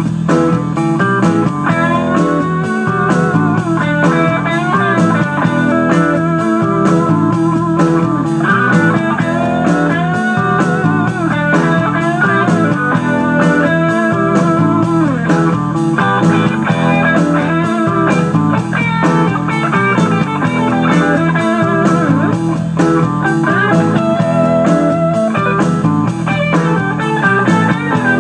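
Instrumental break of a blues-rock karaoke backing track: guitar lead with bending notes over a steady drum beat.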